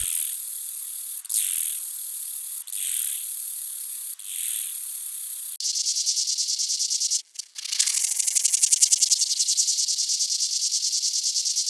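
Insect song from ultrasonic recordings: a high, dense buzzing that swells three times about a second and a half apart. About five and a half seconds in it cuts to a different insect's rapid, evenly pulsed trill, briefly broken off about two seconds later.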